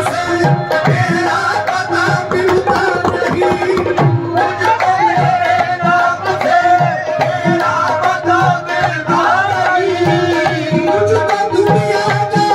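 Qawwali music: tabla beating a steady rhythm under sung melodic lines, over a sustained held drone.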